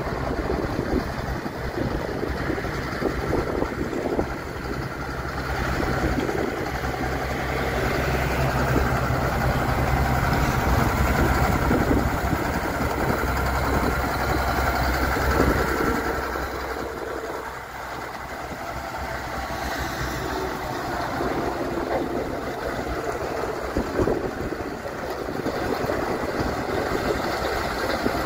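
Case IH 7250 Magnum tractor's six-cylinder diesel engine running steadily at low speed as the tractor drives slowly past, with a brief dip in level about two-thirds of the way through before the drone returns.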